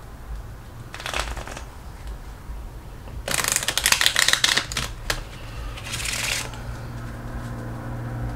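A deck of playing cards being shuffled by hand: a short rustle about a second in, then a long riffle of rapid crisp card flicks from about three to five seconds in, and a shorter riffle around six seconds. A faint low steady hum runs underneath.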